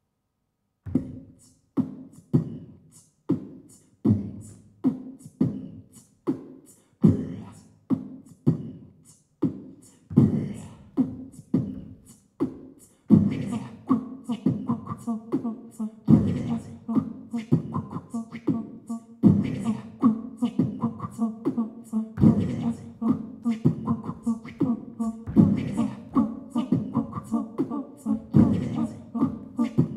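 Beatboxing (vocal percussion) into a stage microphone. It starts about a second in as a slow, even beat of single hits. From about halfway through it grows denser over a steady low hummed tone.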